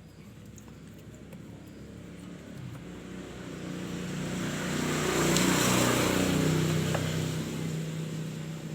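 A road vehicle driving past: engine and tyre noise swelling to a peak about halfway through and then fading, its pitch dropping as it goes by.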